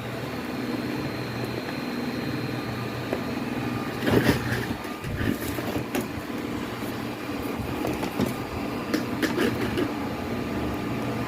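Music playing through speakers driven by an Emerald Pro USA MG-1001 amplifier with its preamp board bypassed by a wire jumper, now at normal loudness: the low-volume fault lies in the preamp board. A few sharp clicks of handling around four and nine seconds in.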